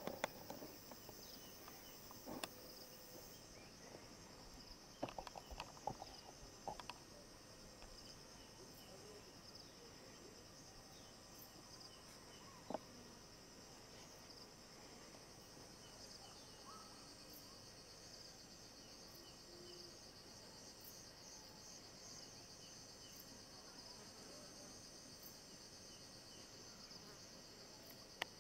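A steady, high-pitched chorus of insects, with a few faint knocks in the first several seconds and one more about halfway through.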